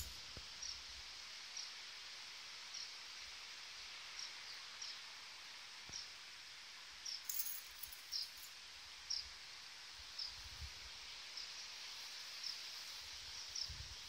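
Quiet outdoor ambience with a steady faint hiss and a small bird chirping over and over, one short high chirp about every second. A brief rustle comes about halfway through, and a few soft low thumps follow.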